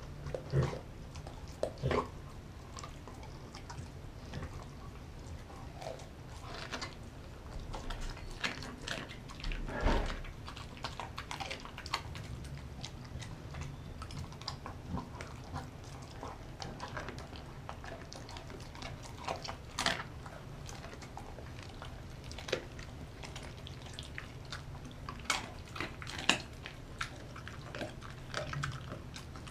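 A German Shepherd-type dog chewing, licking and gnawing a piece of raw chicken, with irregular sharp clicks and smacks of teeth and tongue, the loudest about ten seconds in and again about twenty-six seconds in.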